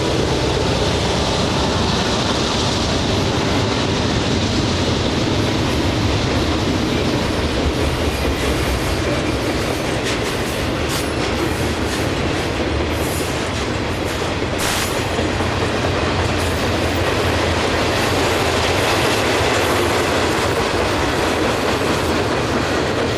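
Railroad cars of a CSX freight train rolling steadily past, with continuous wheel-on-rail noise and clickety-clack over the rail joints. There are a few brief high squeals or clanks near the middle.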